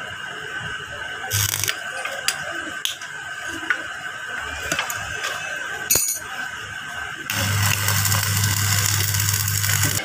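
Scattered sharp metallic clinks and taps of blacksmith's tools and steel. About seven seconds in, a loud steady hiss with a low hum starts and runs on.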